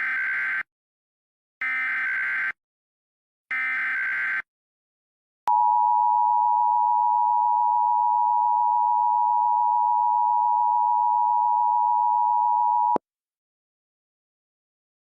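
Emergency Alert System header: three short bursts of screeching SAME digital data, each about a second long and about a second apart, then the two-tone EAS attention signal sounding steadily for about seven seconds before cutting off abruptly.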